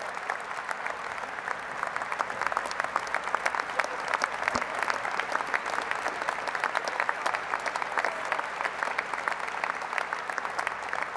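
Large crowd applauding, a dense, steady clatter of many hands clapping.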